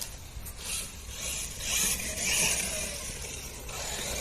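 VRX Cobra 1/8-scale brushless RC truggy driving in bursts of throttle: motor and drivetrain whine with tyre noise that swells and fades several times. It has a sound that doesn't sound right, which the owner thinks may mean the diffs lack proper grease.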